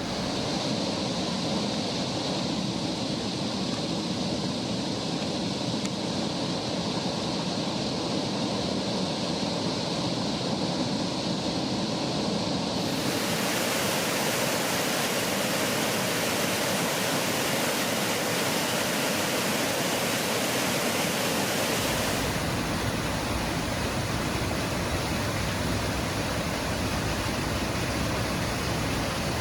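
Waterfall pouring over a wide basalt ledge: a steady, full rush of falling water. Its tone changes abruptly about halfway through, turning brighter and hissier, then duller again a few seconds before the end.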